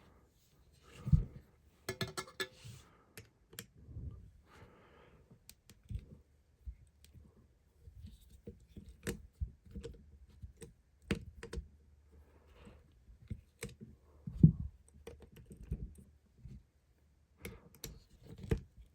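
Irregular small metal clicks and knocks from a Heritage .22 LR gun being handled and taken apart, with two louder thumps, about a second in and again near the end's last third.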